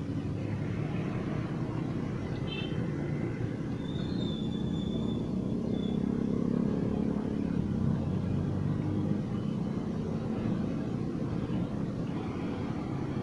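Engine oil poured from a pail through a funnel into the filler of a Komatsu PC200-8 excavator's engine, over a steady low rumble.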